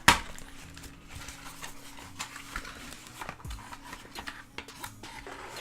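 Unboxing handling noise as the keyboard's braided USB cable is taken out of its packaging: one sharp knock right at the start, then scattered light clicks and rustles.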